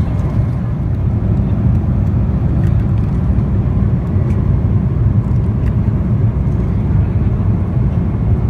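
Steady low rumble of a Boeing 777-300's cabin in flight: the even roar of engines and airflow heard from an economy seat.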